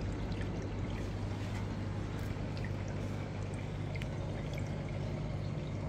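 Aquarium filter running: a steady trickle of water splashing into the tank with scattered small drips, over a low steady hum.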